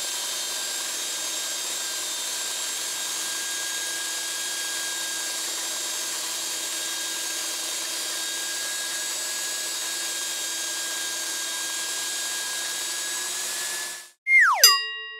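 Makita 9404 4x24-inch belt sander running steadily with a constant whine while a wooden strip is fed along the belt. Near the end it cuts off abruptly, and a short falling swoosh with ringing chime tones follows.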